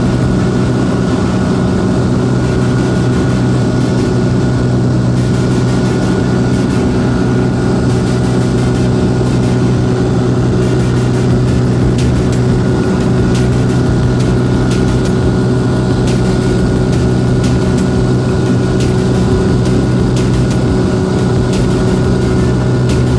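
Light propeller airplane's engine and propeller droning steadily in cruise flight, heard from inside the cabin as a loud, even hum with a constant low pitch.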